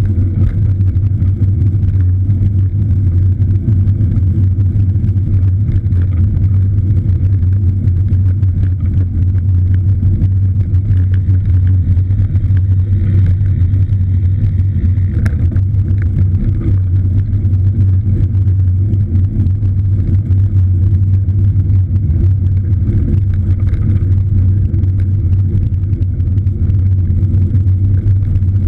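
A steady, loud low rumble with no change in level, with faint scattered ticks over it.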